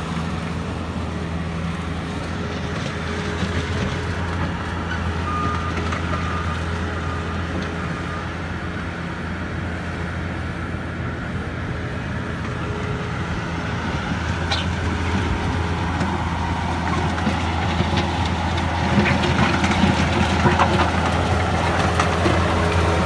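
Diesel engine of a 2012 Bobcat T190 compact track loader running steadily while the machine drives on dirt. It grows louder in the last few seconds as it comes close, with rattling and clanking from the tracks and bucket.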